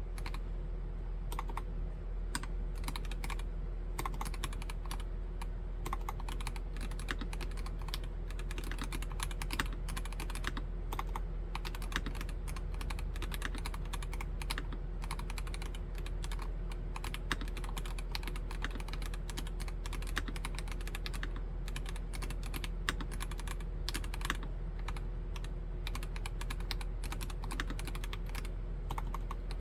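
Typing on a Nori Spring Rider Black mechanical keyboard with Gateron Yellow Pro V2 linear switches: a steady, continuous run of keystrokes, several a second, with the odd louder stroke.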